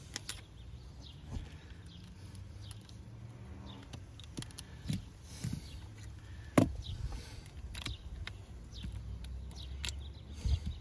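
Scattered small clicks and taps of hands and a plastic spudger working on an opened iPhone while fitting its screen adhesive, the sharpest click about two thirds of the way through. Faint bird chirps sound in the background over a low hum.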